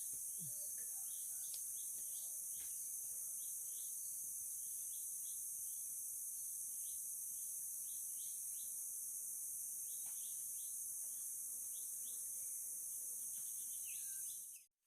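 Steady high-pitched drone of an insect chorus, with short chirps repeating throughout. It cuts off abruptly near the end.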